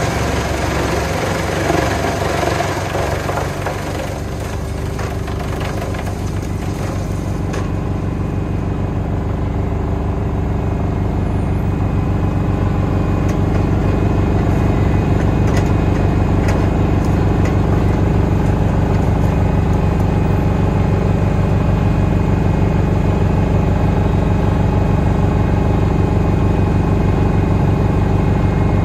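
Valtra T190 tractor's six-cylinder diesel driving a Junkkari HJ500 PTO wood chipper: for the first few seconds the chipper is chewing wood and blowing out chips, then it runs empty with a steady engine drone that grows louder over several seconds. A few faint knocks come through the drone.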